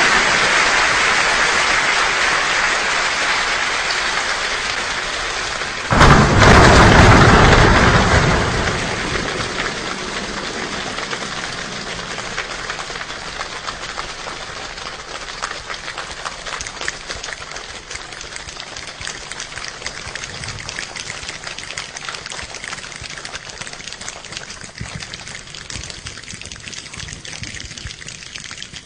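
A rainstorm imitated by a crowd of people with their hands and bodies: a dense rushing patter, a loud thunder-like burst about six seconds in, then the patter thins to scattered drop-like clicks and slowly dies away.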